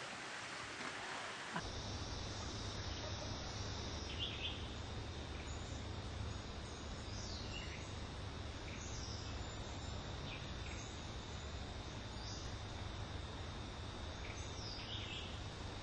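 Jungle ambience: a steady high insect drone over a low hum, with short falling bird chirps every second or so. It cuts in abruptly about a second and a half in.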